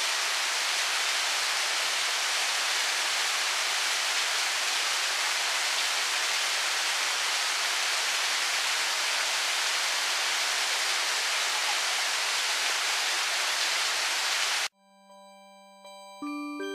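Steady rushing of a 15 m waterfall, water falling into a plunge pool. It cuts off abruptly near the end, and a few soft chime-like music notes follow.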